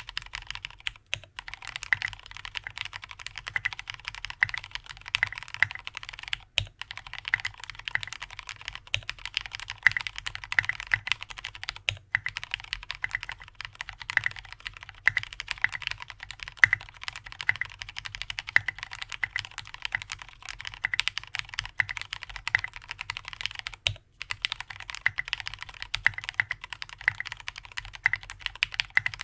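Continuous fast typing on an AR87 mechanical keyboard with lubed Cherry MX Black linear switches (65 g TX springs), an aluminium plate, a silicone dampening sheet and SA-profile keycaps: a dense stream of keystroke clacks, broken by a few brief pauses.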